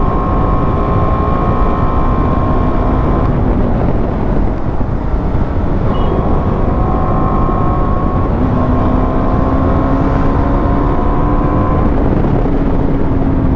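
Motorcycle engine running at road speed under heavy wind rush on the rider's microphone. Its engine note fades back about three seconds in and comes in again from about eight seconds, slowly climbing in pitch as the bike pulls.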